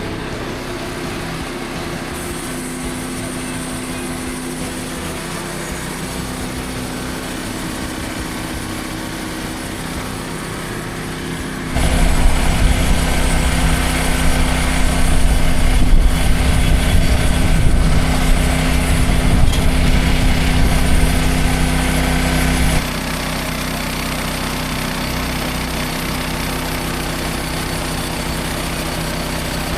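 Frontier portable band sawmill's small gas engine running steadily. About twelve seconds in it gets much louder and harsher, with a heavy deep rumble, for about eleven seconds, then drops back to its earlier steady running.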